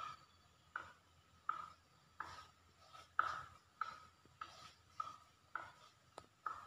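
Fishing reel being cranked in steady turns, a faint scratchy squeak with each turn of the handle, about one and a half a second, as a hooked gourami is reeled in.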